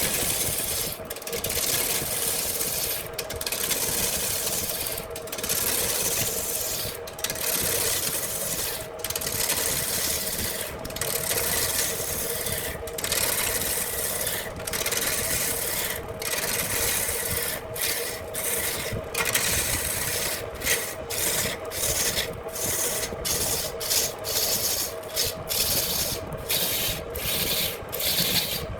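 Handmade wood lathe running with a steady hum while a tool scrapes against the spinning branch wood in repeated strokes, briefly breaking off every couple of seconds at first and about twice a second near the end.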